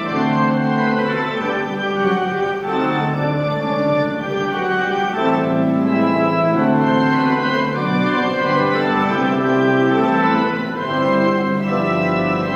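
Slow organ music of long held chords that change every second or two.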